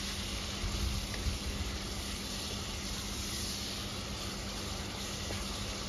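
Chopped tomatoes and browned onions frying in oil in a pan, a steady sizzle.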